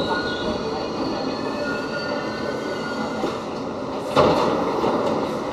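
R68 subway car in motion, heard from inside the car: a steady rumble of wheels on rail, with a thin, high wheel squeal through the first half. A single sharp clunk comes about four seconds in.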